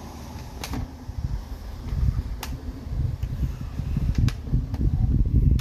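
Sewer inspection camera's push cable being pulled back and fed onto its reel: an uneven low rumbling with a sharp light click every second or two.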